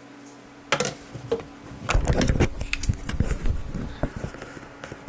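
Hard plastic knocks, clicks and rattles as a 3D printer's plastic top is handled and set down, with a dense cluster of them and a few low thumps in the middle.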